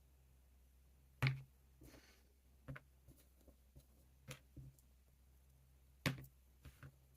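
Scattered sharp clicks and knocks of small tools and objects being handled and set down on a work surface, the two loudest about a second in and near the end, with a short soft rustle between, over a steady low hum.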